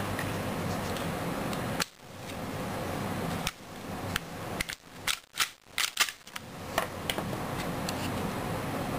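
Sharp clicks and clacks of a KSC Glock 18C airsoft pistol being handled: single clicks about two and three and a half seconds in, then a quick run of clicks as the slide is pulled off the frame. A steady low hum runs underneath.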